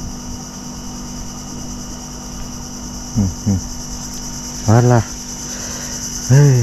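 Insects droning steadily in the surrounding vegetation, an even, high-pitched buzz with no break.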